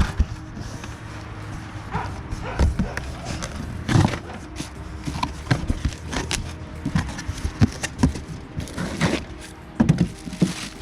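A cardboard box being opened and its parts handled: irregular knocks, clicks and rustles at no steady rhythm.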